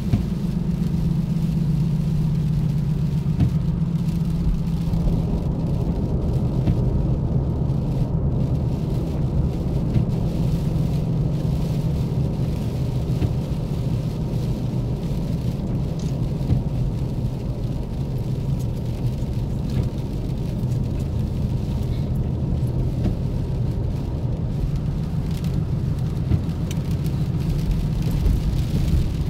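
Steady road noise of a car heard from inside the cabin: engine hum and tyres on a wet freeway, with a few light clicks here and there.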